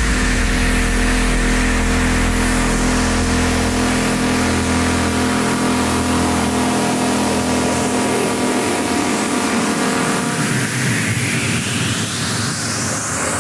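Electronic dance track in a build-up: a held synth chord over a bass that drops out about halfway through, then a noise sweep rising in pitch over the last few seconds.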